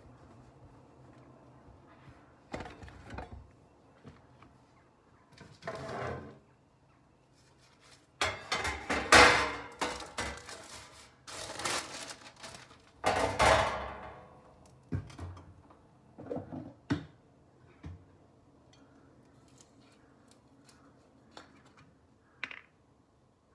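Kitchen handling sounds: a metal baking tray clattering and knocking as it is moved and set down, with a dense stretch of rattling and knocks in the middle. Earlier and later there are a few lighter single knocks, and a short click near the end.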